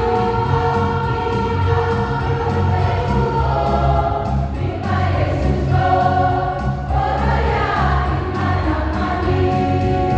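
Church choir singing a Christian song in sustained, held notes over instrumental accompaniment with a strong bass.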